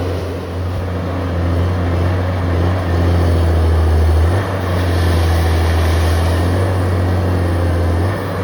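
Heavy diesel engine of a Valmet 415 logging machine running steadily under hydraulic load, its low hum changing pitch about four seconds in and again near the end.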